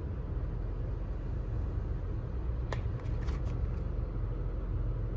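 Steady low rumble, with a few light clicks and crackles about halfway through.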